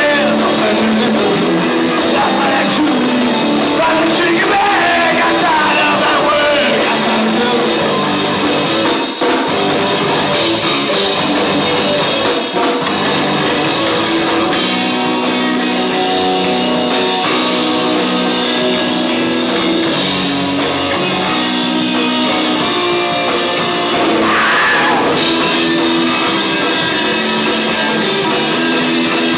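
Live band playing a rock song: electric guitar, electric bass and drum kit together, loud and continuous.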